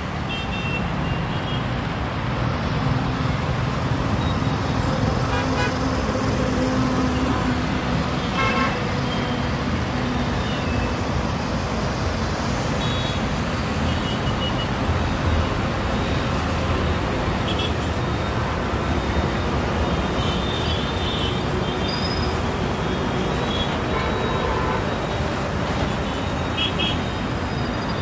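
Steady highway traffic: the engines and tyres of passing cars, motorbikes, auto-rickshaws and trucks, with several short horn toots scattered through.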